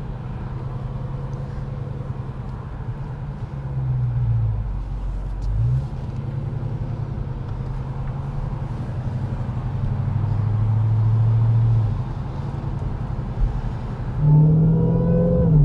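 Dodge Charger SRT Hellcat's supercharged 6.2-litre V8 heard from inside the cabin while the car is driven at low speed. The engine note dips and rises a few times with the throttle, and climbs near the end.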